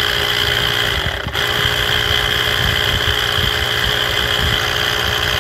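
A 12 V DC diaphragm sprayer pump with an RS775 motor, running steadily with a constant whine. It is wired straight to the battery to test whether the pump itself is to blame for the sprayer's weak spray. The sound dips briefly about a second in.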